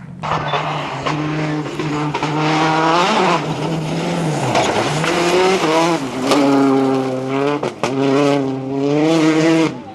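Rally car engine revving hard on a stage, its pitch climbing and dropping again and again as it shifts gears and lifts off the throttle, with several sharp breaks in the note.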